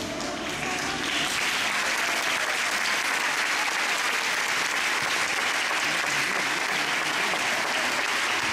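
Audience applauding: the clapping swells about a second in and holds steady, as the last of a sung piece fades at the start.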